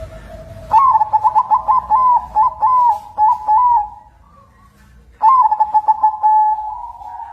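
Zebra dove (perkutut) cooing in full song: two phrases of quick, closely repeated notes, the first beginning just under a second in and the second about five seconds in, ending in a drawn-out note.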